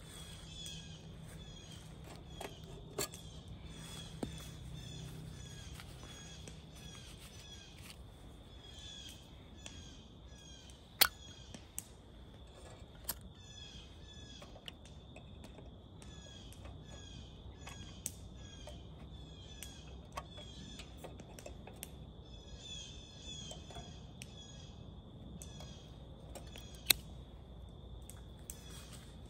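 Birds calling over quiet outdoor ambience, with short chirps repeating throughout and a steady high tone beneath them. A few sharp clicks, the loudest about 11 and 27 seconds in.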